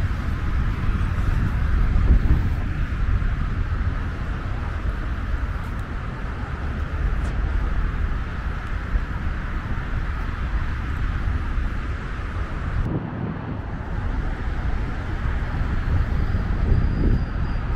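Steady rush of heavy multi-lane highway traffic: tyres and engines of many passing vehicles blending into one continuous noise.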